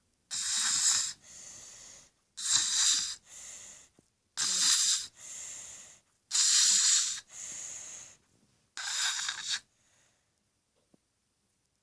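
Snoring: five loud, noisy breaths in, about two seconds apart, the first four each followed by a softer breath out. The last breath in has no breath out after it, and a pause follows.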